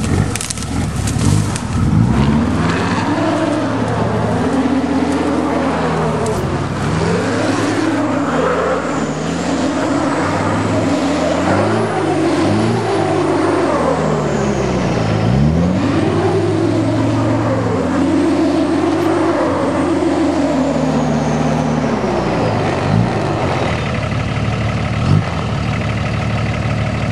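Diesel pickup truck engine revving up and down over and over as it works in deep mud, then settling to a steady idle a few seconds before the end.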